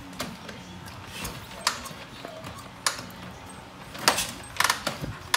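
Kick-starting a vintage Harley-Davidson JD V-twin: separate metallic clicks and clanks from the kick-start lever and its mechanism as it is kicked through. The engine does not fire. The loudest clanks come about four seconds in and just after.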